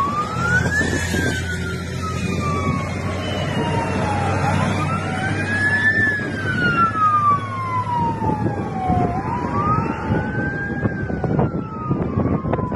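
Sirens of airport crash-rescue fire trucks wailing, each slowly rising and falling over a few seconds, two of them overlapping at different pitches. Underneath is the low steady hum of a heavy vehicle engine, which fades out partway through.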